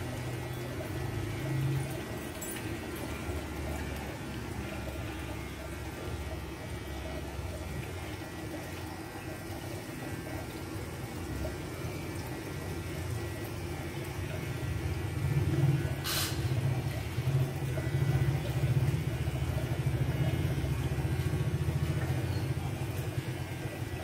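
Steady low hum and rumble of background noise, somewhat louder in the last third, with a single sharp click about sixteen seconds in.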